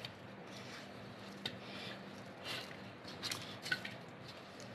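Hands kneading oiled semolina dough in a steel bowl: faint squishing and light scraping, with a few short, slightly louder squishes through the middle and latter part.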